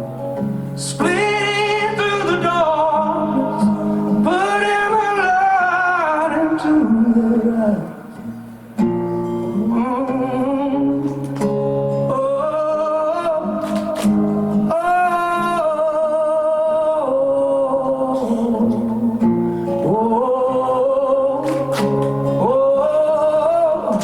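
Rock band playing live: a male voice sings long, sliding held notes with no clear words over guitar chords, dropping away briefly about eight seconds in before the music picks up again.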